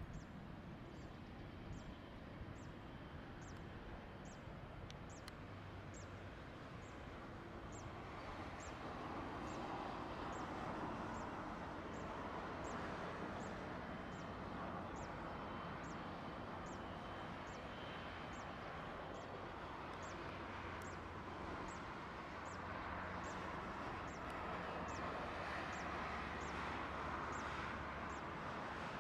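Dornier 328JET's twin turbofan engines running at taxi power, a steady distant jet whine and rush that grows somewhat louder after about eight seconds. A bird repeats a short high falling chirp a little more than once a second.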